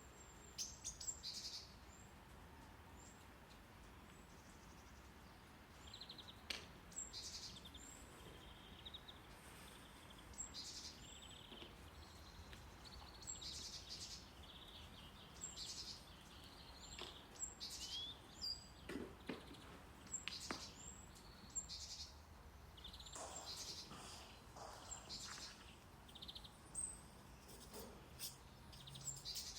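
Faint bird chirps and short calls, many of them scattered irregularly, over a steady low hiss of brown noise.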